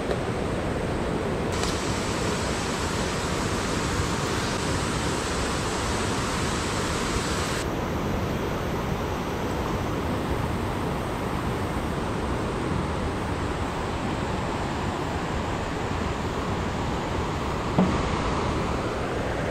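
Mountain stream rushing steadily over rocks, with a brief knock near the end.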